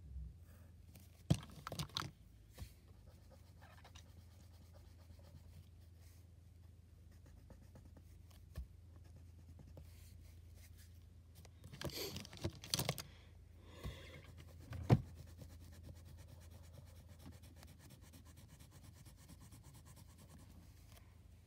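Faint scratching of a pencil and pen on paper while drawing, over a steady low hum. A few knocks and rustles come near the start and again about twelve seconds in, and the loudest is a sharp tap about fifteen seconds in.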